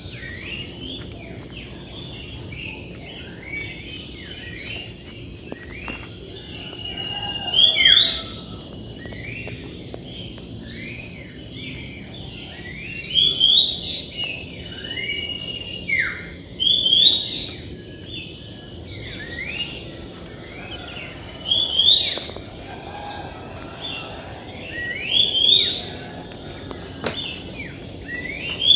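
Wild birds chirping and calling, with short sliding notes and a louder bird phrase every few seconds, over a steady high-pitched drone of insects.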